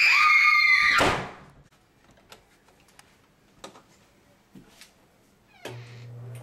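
A high scream held for about a second, cut off as a door slams shut, followed by a few faint clicks.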